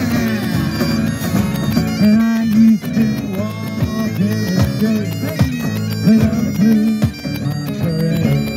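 Bagpipes playing a tune over their steady drone, together with a one-man band's electric guitar.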